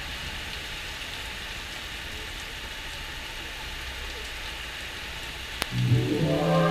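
Steady low rumble of an idling motorbike engine under a hiss of rain. A sharp click comes about five and a half seconds in, then music starts near the end.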